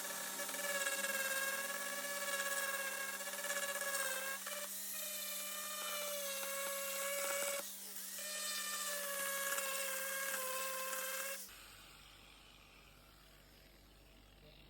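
High-speed rotary tool whining steadily at a constant pitch, with two brief dips in speed before it stops about three-quarters of the way through.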